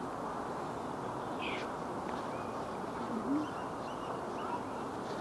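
Steady outdoor background noise with a few short, faint bird chirps. A brief low call a little after three seconds in is the loudest moment.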